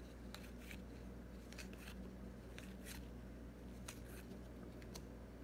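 Faint papery clicks and slides of baseball trading cards being thumbed one by one through a stack in the hands, irregular and scattered, over a low steady hum.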